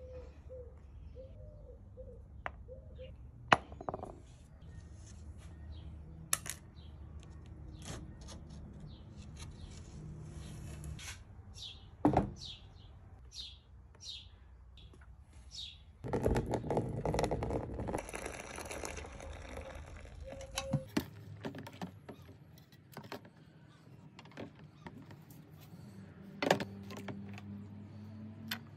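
Small metal stove parts handled and set down on a workbench with light clicks and knocks, and about halfway through a few seconds of water running into a plastic tub to make a soapy wash. Birds chirp in the background.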